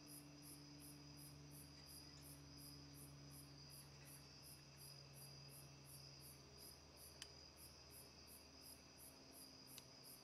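Faint crickets chirping steadily, about four high chirps a second, with two soft clicks later on.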